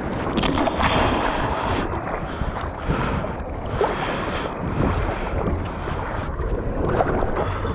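Ocean water sloshing and splashing around a camera held at the water's surface in small surf, with wind buffeting the microphone.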